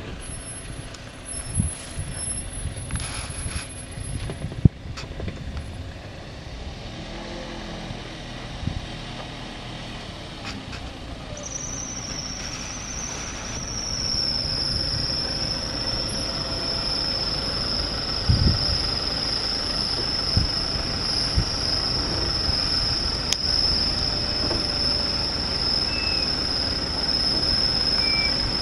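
Off-road 4x4s creeping down a steep muddy slope, with a low engine rumble and occasional thumps. About twelve seconds in, a steady high-pitched squeal sets in and holds, typical of brakes squealing under constant braking on the descent.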